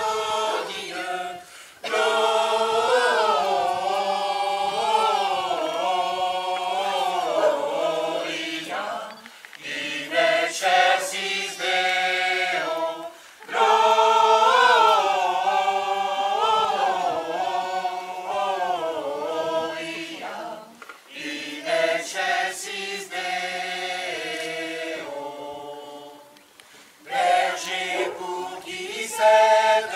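A choir singing, phrase after phrase, with short breaks between the phrases.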